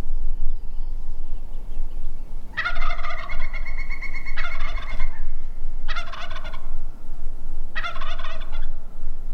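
Wild turkey gobbling three times, the first gobble long and drawn out and the next two short.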